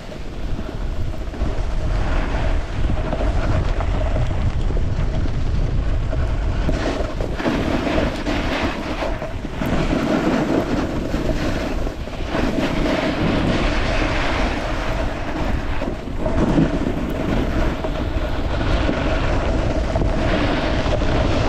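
Wind rushing over the microphone while snowboarding downhill, with the hiss of the board sliding over wet snow. Steady, with a couple of brief dips.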